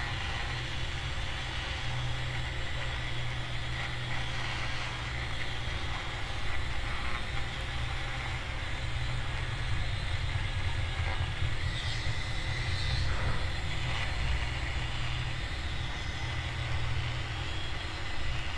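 Small electric motor of a handheld rotary glue-removal tool running steadily, a low hum with a thin higher whine, as its tip works old adhesive off a phone's frame.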